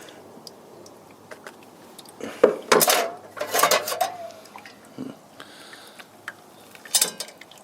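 Metal tent stake stirring coffee in a metal pot, clinking and scraping against the sides in a few short bursts, one with a brief metallic squeal.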